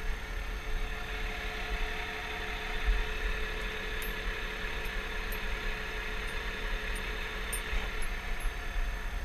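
Valtra 8350 tractor's six-cylinder diesel engine running steadily while pulling a plough. A steady whine sits over the engine noise, with a low rumble underneath.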